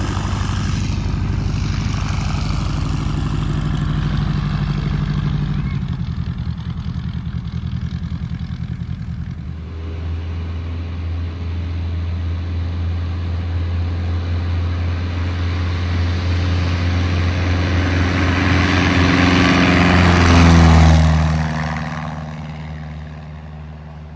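Rans S21 light airplane's engine and propeller running; about ten seconds in the note changes and the sound grows steadily louder, passing close near the end with the pitch dropping, then fading away.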